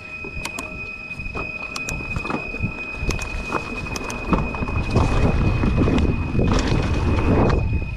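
Mountain bike riding down a dirt trail: tyre noise on dirt and leaves with sharp rattling clicks from the bike, and a low rumble of wind and tyres building about halfway through as speed rises. A thin steady high whine runs underneath.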